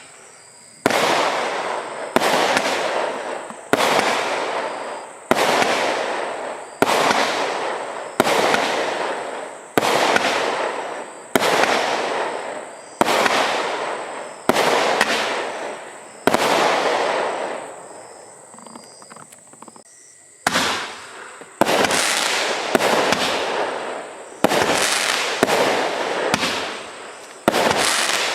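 A consumer firework barrage (cake) firing shot after shot, about one every second and a half, each a sharp report trailing off over about a second. The firing pauses for a few seconds past the middle, then resumes.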